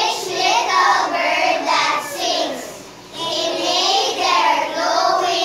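A group of young children singing together in phrases, with a brief pause about three seconds in.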